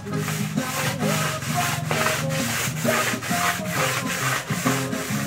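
Floor-polishing cloth rubbed back and forth across a concrete floor under a bare foot, in quick regular scrubbing strokes, about three a second.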